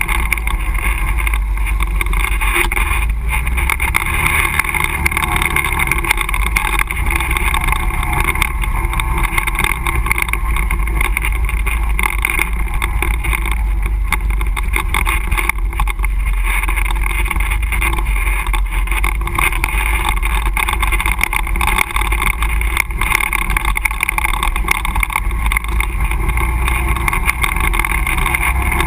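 ATV engine running steadily as the quad rides a rough trail, with many small knocks and rattles from the bumps.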